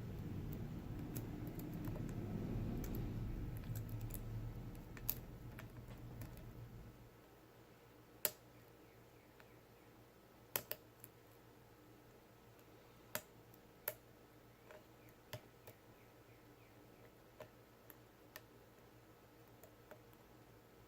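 Lock pick working the pin stack of a Lockwood 334S45 padlock held in a false set, which the picker puts down to spool pins: sharp metallic clicks at irregular intervals as pins set. A low rumble fills the first several seconds.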